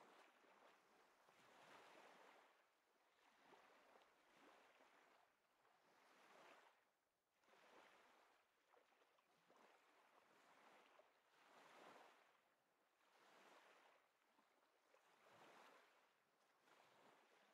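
Very faint surf washing on a sandy beach, a noise that swells and fades about every two seconds.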